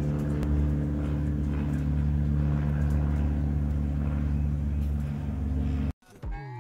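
Aircraft engine drone overhead, steady, with several even tones. It cuts off abruptly about six seconds in, and music starts just after.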